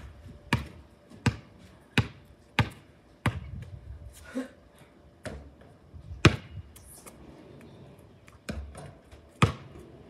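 A basketball bouncing on a concrete driveway. It bounces steadily about once every 0.7 s for the first few seconds, then a few scattered bounces follow, the loudest a little past the middle.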